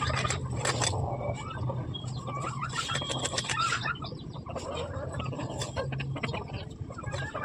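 Birds calling and chickens clucking, with scattered clicks and scrapes as a catfish is sliced against a blade, over a low steady hum.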